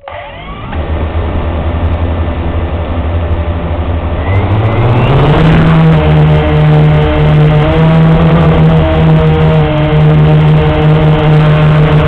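Blade 350 QX quadcopter's four brushless motors and propellers starting up from rest and running at a low steady hum, then rising in pitch about four to five seconds in as the throttle comes up for takeoff, and holding a steady, louder whine in flight. Heard close up through the camera mounted on the quadcopter.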